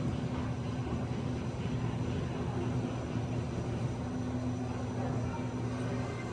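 A steady low mechanical hum with a constant pitch.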